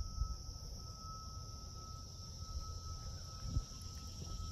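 Steady, high insect drone of crickets and other insects, with a second thin steady tone lower down. Under it is a low rumble with a couple of soft thumps, about a quarter second in and near the end.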